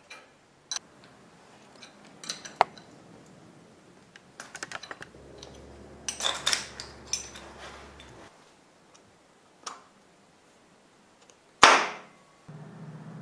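Hand tools working on small metal parts: scattered metallic clicks and clinks, including a ratchet wrench turning a three-jaw gear puller, with one loud sharp knock near the end.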